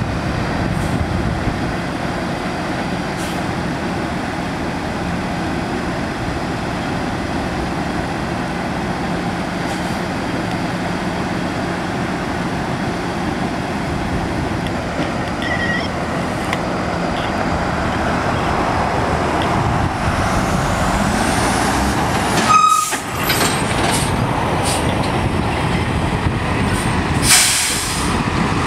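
Heavy-duty wrecker tow truck's diesel engine running as it creeps past, its note rising about twenty seconds in. There is a short sharp sound a little after that, and a brief air-brake hiss near the end.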